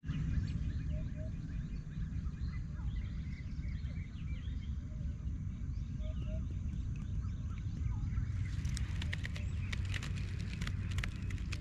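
Small birds chirping and calling around a calm lake over a steady low rumble on the action camera's microphone. From about eight seconds in comes a run of sharp clicks and knocks.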